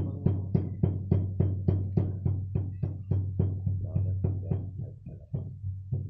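Background music with a steady percussive beat, about three strikes a second, over a low sustained drone.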